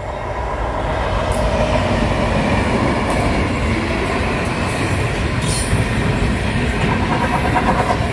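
Aurizon freight train passing close by at speed, led by locomotives GWA006 and FQ03: a loud, steady rumble of the locomotives and then the wagons' wheels on the rails, swelling in the first second as the train arrives, with a few sharp clacks.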